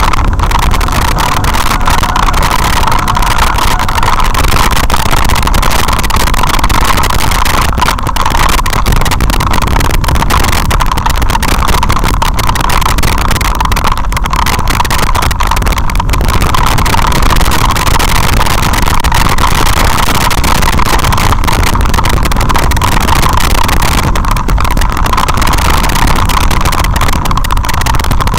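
Loud, steady rumble and rattle of a vehicle riding down a gravel dirt track, picked up by a camera mounted on it, with constant clicking and jolting from the rough surface.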